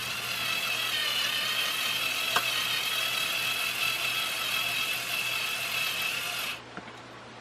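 Handheld electric power drill running at a steady speed with a whine for about six and a half seconds, then stopping.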